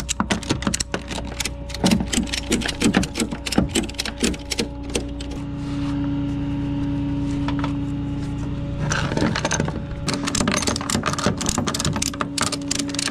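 Ratchet tie-down strap being cranked in quick clicking strokes to strap a car's wheel to a flatbed tow truck's deck, pausing for a few seconds in the middle, over a steady low hum.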